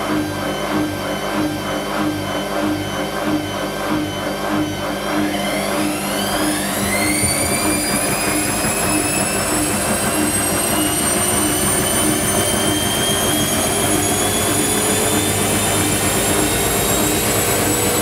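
Whirlpool Indiana 1400 front-loading washing machine going into its spin: the drum turns with an even rhythmic pulsing, then about five seconds in the motor's whine starts to rise, quickly at first and then slowly and steadily, as the drum speeds up toward full spin.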